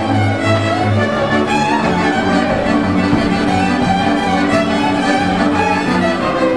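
Transylvanian village string band playing a fast dance tune: several fiddles bowing the melody together over a chordal accompaniment and double bass.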